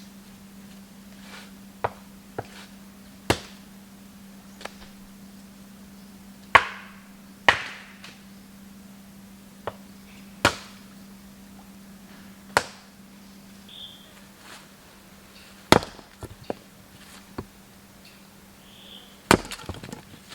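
Wood being chopped with a blade: about a dozen sharp, irregularly spaced strikes, the loudest a third of the way in and near the end.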